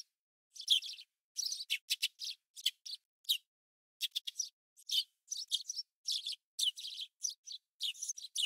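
Small songbird chirping in quick, irregular runs of short high notes, with dead silence between them.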